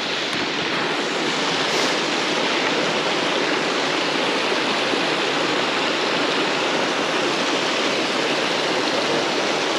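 Snowmelt mountain stream rushing, a steady even hiss of water that holds at the same level throughout.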